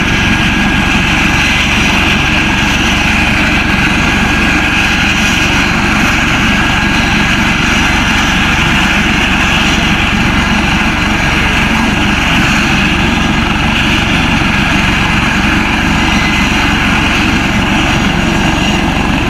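Eurocopter AS365 Dauphin helicopter running on the ground with its rotor turning: a loud, steady turbine whine over rotor noise.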